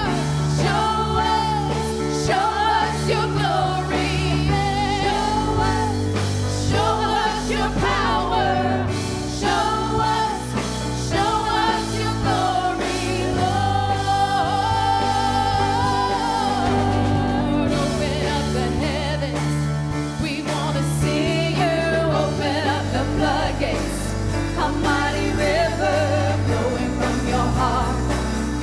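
Gospel worship song: voices singing a melody over sustained keyboard or band chords.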